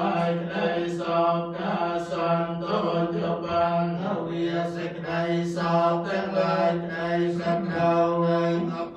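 Buddhist monks chanting together on a steady, nearly single pitch, in an unbroken flow of syllables.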